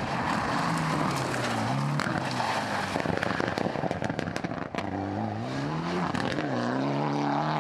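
Mitsubishi Lancer Evolution X rally car's turbocharged four-cylinder engine at full throttle on gravel, its note dropping and climbing again as it lifts and changes gear. In the middle comes a dense burst of sharp pops and crackles.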